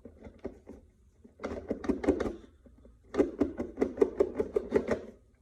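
Packaging being opened by hand: a run of quick crackling clicks in three bursts, the last and longest near the end at about eight clicks a second.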